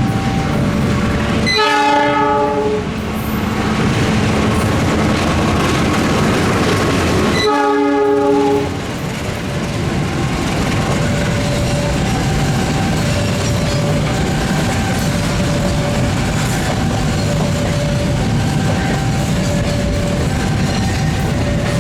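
A long Indonesian train passing close by with a steady rumble and clickety-clack of wheels on rail joints, its locomotive horn sounding two blasts about six seconds apart, each about a second long. Under it a faint two-tone warning signal alternates about once a second.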